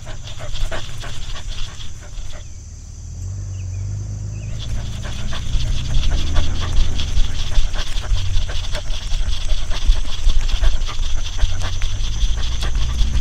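A dog panting, over a low rumble and a steady high insect drone, growing louder about five seconds in.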